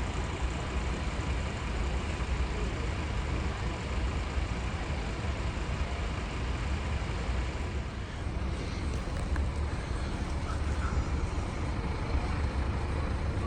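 Steady road traffic noise, a continuous low rumble of passing vehicles with no single event standing out.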